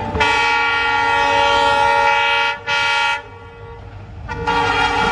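Train horn sounding in three blasts: a long one of about two and a half seconds, a short one right after, and another starting about four seconds in, over a steady low rumble.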